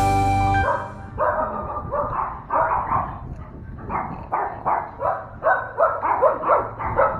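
A dog barking repeatedly in short, fairly high barks, about two to three a second, picking up pace toward the end.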